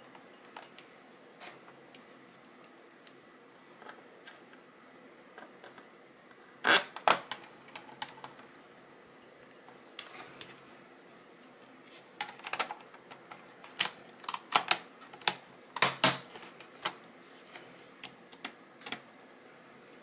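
Irregular sharp clicks and taps of a screwdriver and screws against the plastic underside of a ThinkPad laptop as it is screwed back together, with the loudest pair of knocks about seven seconds in and a busy run of clicks a few seconds before the end.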